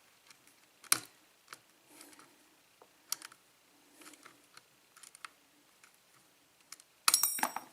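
A lock pick and tension wrench working the pins of a Schlage pin-tumbler lock: scattered faint clicks and light scraping. Near the end there is a louder, brief metallic clatter with a ringing tone.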